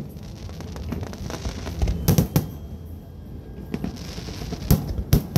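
Aerial firework shells bursting: a quick cluster of sharp bangs about two seconds in, then two more single bangs near the end, with a low rumble between them.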